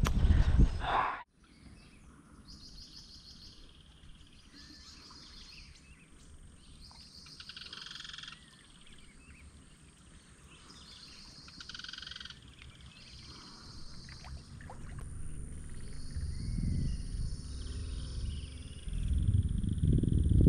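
A loud sound cuts off abruptly about a second in. Quiet outdoor ambience follows, with short high chirring calls of small animals repeating every second or two. A low rumbling noise builds over the last few seconds.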